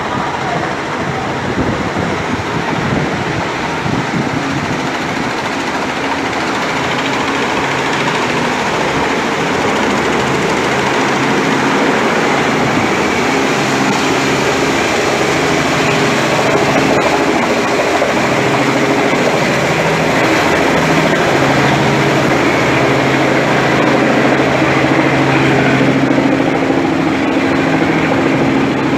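Helicopter engine and rotor noise: a steady mechanical din with a low hum that grows gradually louder, strongest in the second half.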